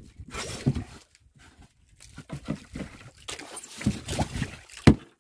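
A board lid scraping and knocking as it is fitted over an iced fish box in a wooden boat, with one sharp knock near the end.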